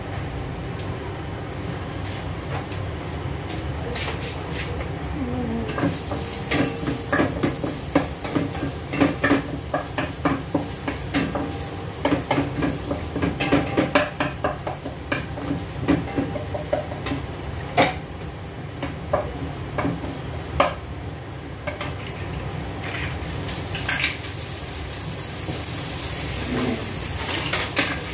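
A metal cooking utensil clinks and scrapes against a pan as food is stirred over a gas burner. There are many quick knocks from about six seconds in, thinning out toward the end, over a steady background hiss.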